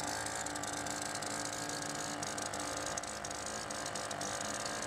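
Small outboard motor running steadily at cruising speed, a continuous fast rattling tick over a steady engine note.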